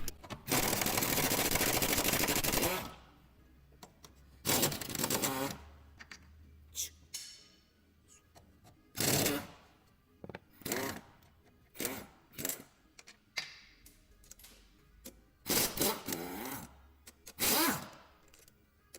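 Tools working on engine mount bolts: a steady rattling run of a ratchet or power tool for about two and a half seconds, then scattered short clanks and scrapes of metal tools and parts.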